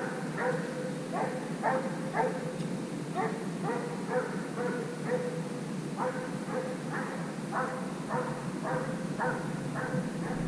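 Russian piebald hound baying on a hare's trail, short calls about twice a second in a steady series: the hound in full cry on the chase.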